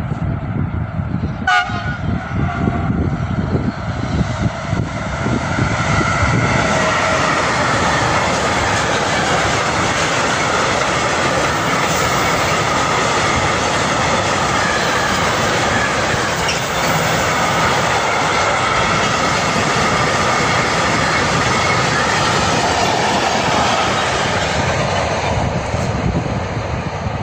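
Train passing over a double-track level crossing: a steady loud rumble of wheels on rails, with a short sharp sound about a second and a half in. The noise grows louder about six seconds in and holds for about twenty seconds before easing near the end.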